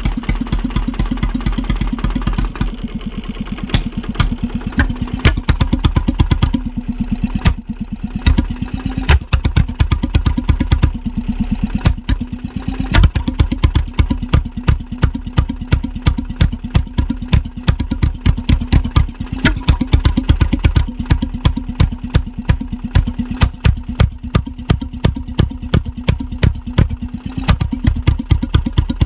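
1921 Petter M 2.5 HP two-stroke stationary oil engine running steadily, a regular rapid train of sharp exhaust beats heard close to the open end of its exhaust pipe.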